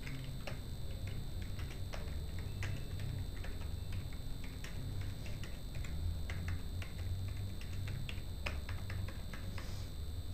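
Computer keyboard typing: irregular, quick keystroke clicks as commands are entered into a router console, over a steady low electrical hum and a faint high steady tone.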